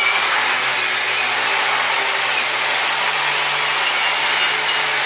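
Power grinder running steadily against metal, grinding off old paint. Its motor hum rises slightly in pitch about two seconds in, as the load on the tool changes.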